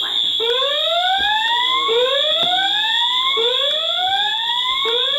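Fire alarm system in alarm: horn strobes sound a steady, shrill, continuous tone while a rising whoop tone sweeps up in pitch and repeats about every one and a half seconds, the whoop of the voice-evacuation speakers between messages.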